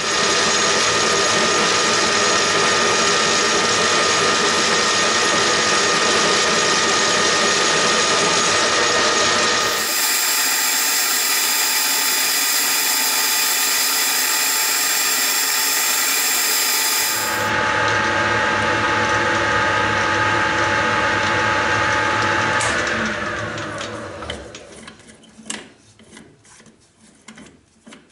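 Metal lathe running under power with a steady gear whine as it turns a steel workpiece in a four-jaw chuck. The sound shifts abruptly for several seconds in the middle. About 22 seconds in, the spindle is switched off and winds down in falling pitch, followed by a few light clicks.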